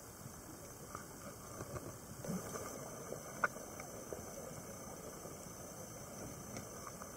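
Faint underwater ambience picked up by a camera in its dive housing: a steady hiss with scattered small clicks and crackles, busier about two to three seconds in, and one sharp click about three and a half seconds in.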